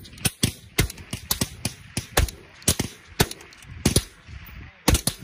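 Several suppressed 7.62 mm M110A1 semi-automatic rifles firing along a firing line: sharp, loud shots from more than one rifle overlapping at uneven spacing, about three or four a second.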